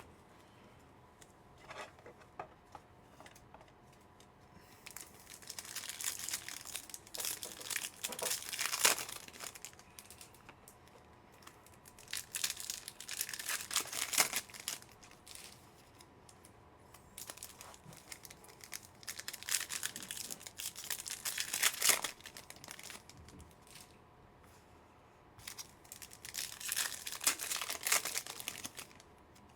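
Foil trading-card packs being torn open and their wrappers crinkled, in four bursts of a few seconds each with quiet gaps between.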